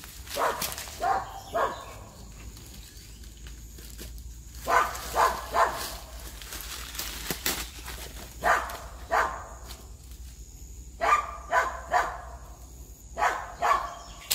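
A dog barking in short runs of two or three barks, a run every three seconds or so.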